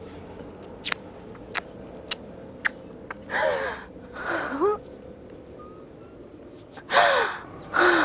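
A person crying in gasping sobs: two pairs of breathy, catching sobs, one pair about three seconds in and another near the end, after a few sharp clicks.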